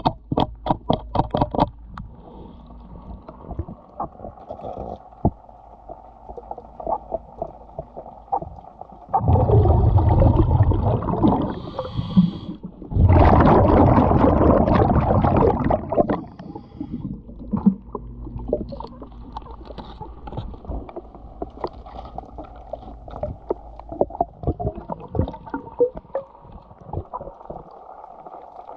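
Heard underwater: a hand scraper rasping against a fouled boat hull in quick clicking strokes at the start, then two loud bursts of bubbling, each about three seconds long, typical of a diver's exhaled air leaving the regulator, with scattered faint clicks between and after.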